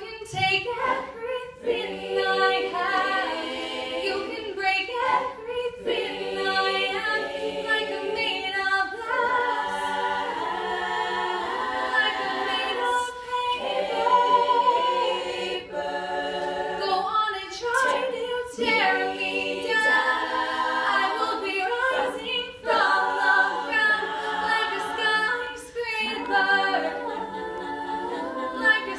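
All-female a cappella group singing: a solo voice at a microphone carried over the group's sustained vocal backing harmonies, with no instruments.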